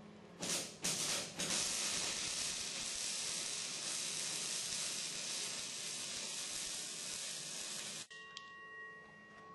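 Two short knocks, then a steady hiss for about six and a half seconds that cuts off suddenly, followed by a faint thin whistle-like tone.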